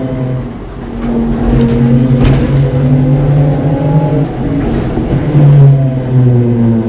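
Ikarus 280T trolleybus under way: a steady low electric hum with higher whining tones from the traction motor that slowly rise in pitch as it gathers speed. A single clunk comes a little over two seconds in.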